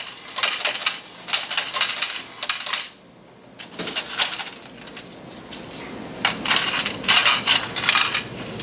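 Quarters clattering out of a change machine's coin hopper into its metal coin cup as it pays out $5 in change. The coins come in quick runs, with a short pause about three seconds in.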